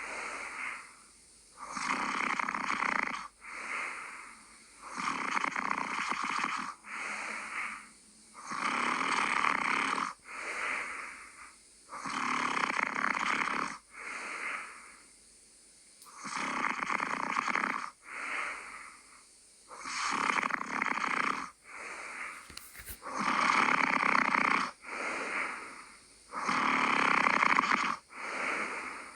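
A sleeping person snoring in a slow, even rhythm: about one breath every three seconds, each a longer rasping snore followed closely by a shorter one.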